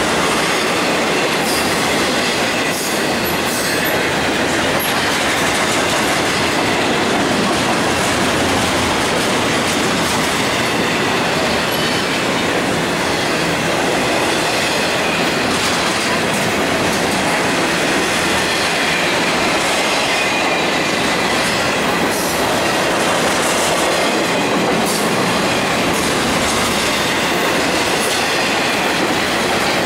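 BNSF double-stack container freight train rolling past: a steady rumble and clatter of steel wheels on the rails, with scattered clicks over the rail joints and a thin, high squeal from the wheels.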